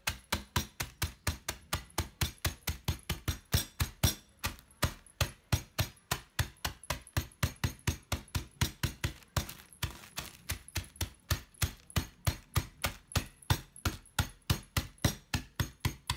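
Bottom of a drinking glass pounding Regal biscuits in a plastic bag on a wooden table, crushing them to crumbs: steady knocks at about four a second.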